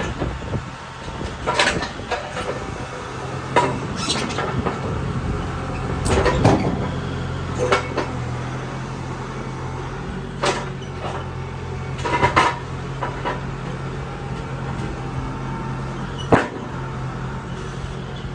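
An engine running steadily at low speed while wooden pieces are handled, giving about eight sharp knocks and clunks at uneven intervals.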